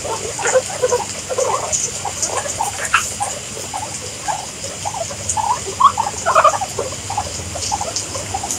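A crowd of guinea pigs squeaking and chattering over one another: a steady jumble of short, overlapping squeaks.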